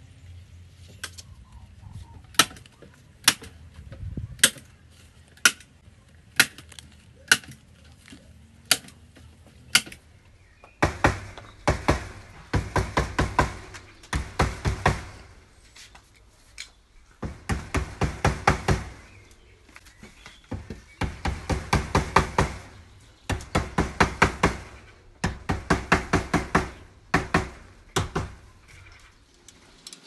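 Wire mesh being fixed to a wooden cage frame with a staple gun: single sharp snaps about once a second. From about eleven seconds in, the snaps give way to rapid runs of clicks in bursts of one to two seconds.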